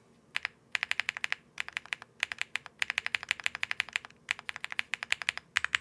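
Keys on an Akko M1 V5 mechanical keyboard with Akko Cilantro tactile switches being pressed in quick bursts of rapid clicks, about ten a second, with short pauses between the bursts.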